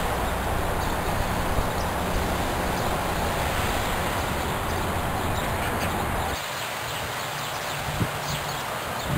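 Outdoor ambience: a steady rushing noise with a low rumble that drops away suddenly about six seconds in, with faint bird chirps scattered through.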